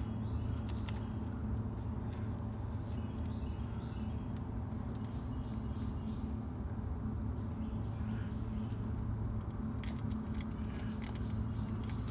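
Campfire crackling with sparse sharp pops, over a steady low hum, while a bird gives short high chirps every couple of seconds.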